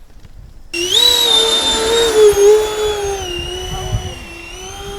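Electric ducted-fan jet motors of a scratch-built RC L-1011 airliner, throttled up and whining. The whine comes in suddenly under a second in, rises in pitch, then holds a steady high note with slight dips.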